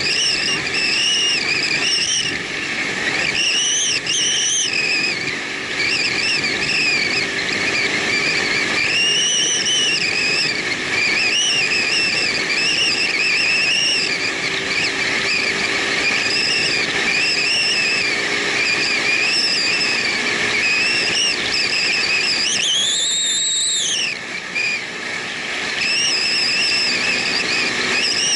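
Motorcycle riding at road speed, heard from an onboard camera: a steady rushing noise with a high whine that rises and falls over and over. The whine swells highest about three-quarters of the way through.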